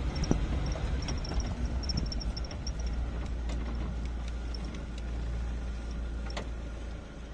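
Vehicle engine running with a low steady rumble, heard from inside the cabin. A few sharp clicks stand out, the loudest about six seconds in, and runs of faint high chirping come in the first few seconds.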